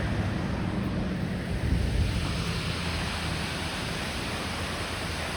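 Steady rushing of a waterfall, the hiss growing fuller about two seconds in, with wind buffeting the microphone.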